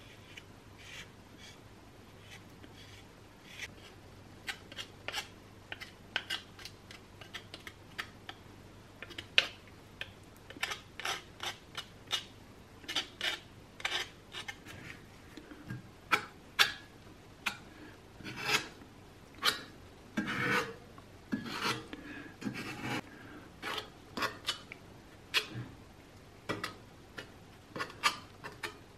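Putty knife and spatula spreading and scraping filler paste over the rusty sheet metal of an oil-lamp part: a run of short scraping strokes, sparse at first, then denser and louder from about the middle.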